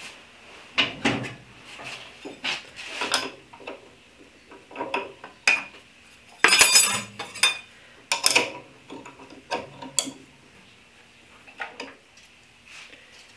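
Steel saw blades and dado blade parts clinking and clanking as a table saw's blade is swapped for dado blades: irregular knocks and clinks, with one louder ringing clank about halfway through.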